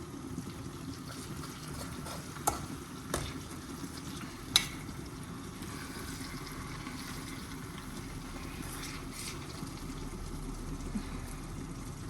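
Chicken breast frying in a pan, a steady sizzle, with three sharp clicks of a utensil against the pan between about two and a half and four and a half seconds in, the last the loudest.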